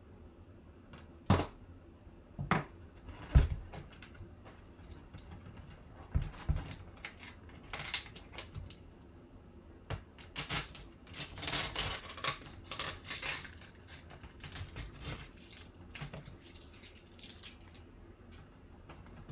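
Folding knife knocking and scraping against a cardboard bat tube while cutting its tape, with three sharp knocks in the first few seconds. Around the middle comes a few seconds of tearing and crinkling as the tape and tube end are pulled open, then scattered light handling clicks.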